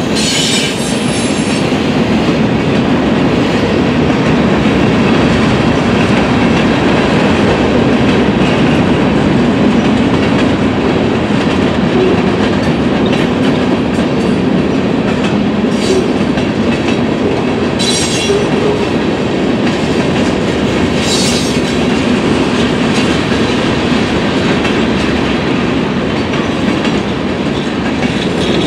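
Norfolk Southern freight cars, covered hoppers and boxcars, rolling steadily past with a continuous rumble and wheel clatter over the rail joints. A few short high-pitched wheel squeals cut through, notably about two-thirds of the way in.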